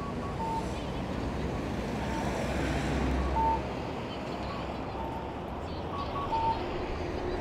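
City street traffic noise, steady, with a vehicle rumbling past about three seconds in and scattered short, faint beeps.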